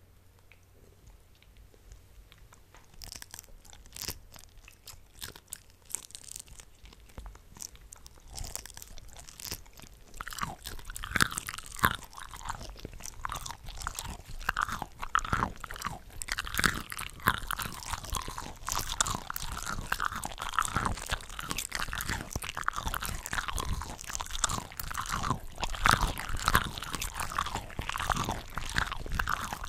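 Close-miked chewing and biting of cooked shrimp from a shrimp cocktail platter, several eating tracks layered over one another. It begins faint with scattered clicks and builds to a dense, continuous run of chewing about a third of the way in.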